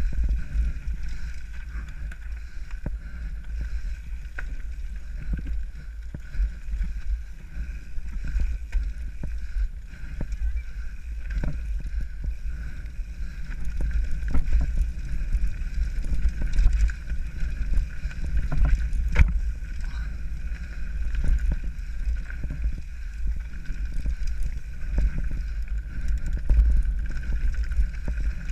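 Mountain bike descending a rough dirt trail, heard from a camera on the bike or rider: a steady wind rumble on the microphone with scattered knocks and rattles as the bike goes over roots and rocks.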